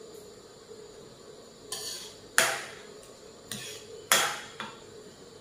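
A metal spatula scrapes and knocks against an aluminium wok while stirring a thick curry. There are about five strokes, and the two near two and a half and four seconds in are the loudest.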